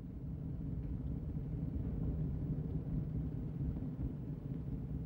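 A low, steady rumble of engine noise with no distinct beat or rise and fall.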